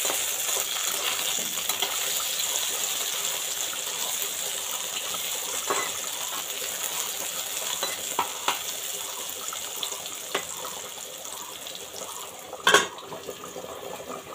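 Sliced vegetables sizzling steadily in hot oil in an aluminium kadai, slowly getting quieter, with a few light clicks of a metal spatula. A loud metal clank comes near the end.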